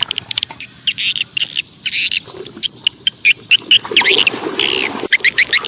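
Calling animals chirping, rapid high pulses that turn into an even train of about eight a second near the end, with a few lower rising-and-falling calls mixed in.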